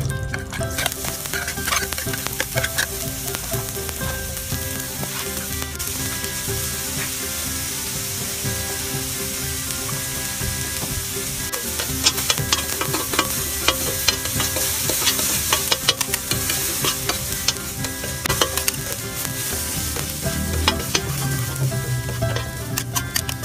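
Diced vegetables frying and sizzling on a hot flat-top griddle. From about halfway, a spatula scrapes and clacks against the griddle in quick strokes as it stirs and tosses them.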